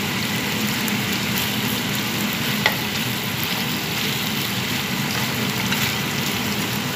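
Chicken strips sizzling as they fry in oil in a pan, stirred with a spatula at the start, with a single sharp tap a little under three seconds in. A steady low hum runs underneath.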